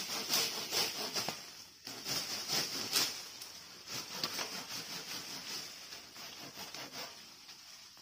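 Leafy cut branches rustling and crackling as they are handled and cut up with hand pruning shears and a pruning saw: an irregular run of scrapes and clicks, busiest in the first three seconds, over a steady high hiss.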